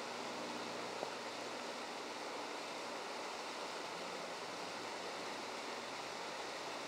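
Steady rush of pumped groundwater pouring from a pump station outfall into a creek, an even, unbroken water noise.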